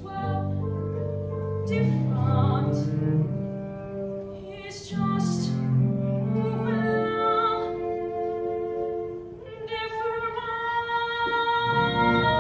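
Slow instrumental music: long held chords with a string-like tone, changing every two seconds or so.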